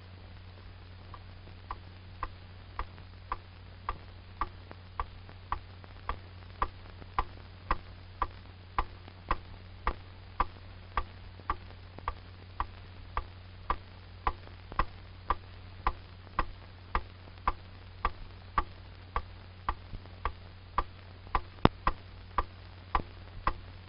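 Even, clock-like ticking, a little under two ticks a second, starting about a second in, over a low steady hum.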